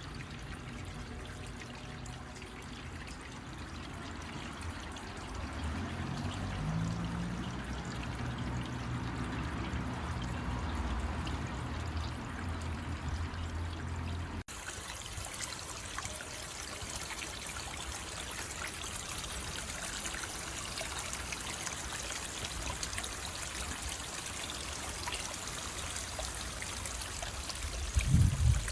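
Water running and trickling down a preformed garden waterfall stream in a steady splash. About halfway through the sound changes abruptly to a brighter, hissier splash.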